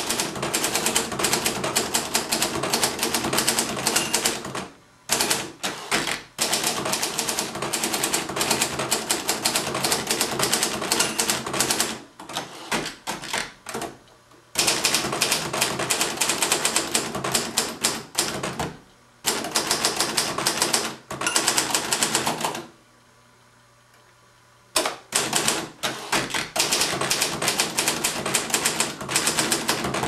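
1963 Hermes 3000 manual typewriter being typed on: quick runs of key and typebar strikes, broken by three pauses, the longest two lasting about two seconds each.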